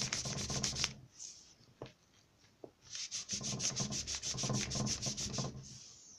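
Crumpled paper napkin rubbed quickly back and forth over pastel crayon on paper, spreading and blending the colour. Two runs of fast scraping strokes, several a second: one stops about a second in, the other runs from about three seconds in to near the end.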